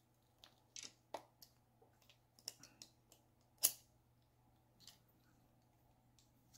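Scattered light clicks and taps of a phone in a plastic case being pressed into the clamp arms of an aluminium bike phone mount, with one sharper click about three and a half seconds in.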